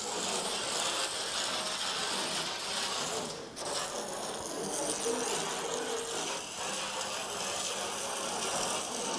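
Loose stone screenings sliding and rattling off a raised dump truck bed, a steady rushing scrape that dips briefly partway through.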